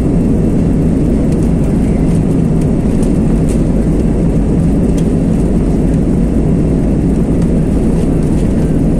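Steady, loud rumble of an Airbus A320 heard from inside the cabin as the airliner rolls along the runway, with a few faint clicks.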